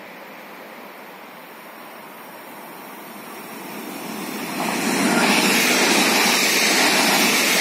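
Electric passenger multiple-unit train approaching and passing: a rising rush of wheels on rail that turns loud about four and a half seconds in and stays loud.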